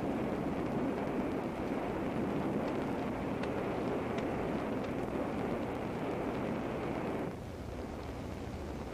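A steady rushing noise with a few faint ticks on an old film soundtrack. It drops in level a little after seven seconds in.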